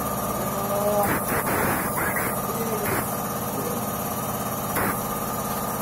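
Steady hum of a running machine motor, with several short clatters and scrapes as a motorcycle cylinder head is handled in a valve seat cutting machine's fixture.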